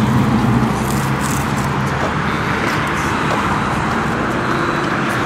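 Steady street traffic noise, with a low engine hum that fades after about a second and a half.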